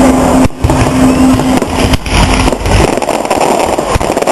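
Fireworks display going off: a loud, continuous mass of crackling and bangs.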